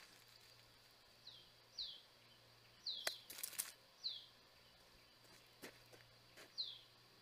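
Faint bird chirps: five short chirps, each falling quickly in pitch, spaced irregularly over several seconds, with a few soft clicks about three seconds in.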